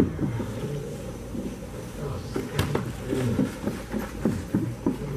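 Low, muffled voices murmuring, with a few light knocks and clicks.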